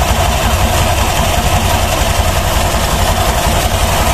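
Honda Click 125i scooter's single-cylinder 125 cc engine idling steadily with the CVT cover off, on a test run after the clutch and belt were refitted.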